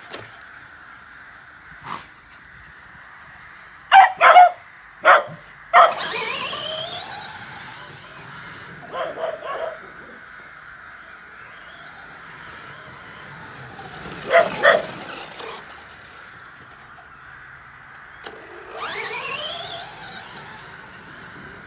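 Bedlington Terriers barking in short, sharp barks, several in quick succession around four to six seconds in, again near nine seconds and around fifteen seconds. Between the barks, a brushless RC car's electric motor whines, rising in pitch each time it accelerates, three times over.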